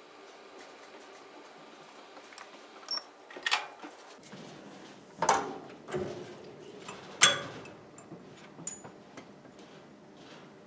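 Small benchtop mill running with a steady hum as a 1/4-20 tap threads a hole in a brass strip. About four seconds in, the hum changes and several sharp metallic clacks follow, the loudest about seven seconds in, as the brass piece and jig are handled.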